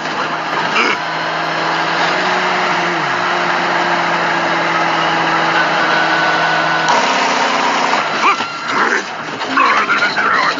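Steady drone of a truck engine running, with an even hiss over a few held low tones; the sound shifts about seven seconds in, and voices come in near the end.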